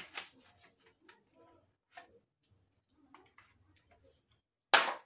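Toy car blister packs of card and plastic being handled: scattered light clicks and faint rustles, then one brief, much louder handling noise near the end.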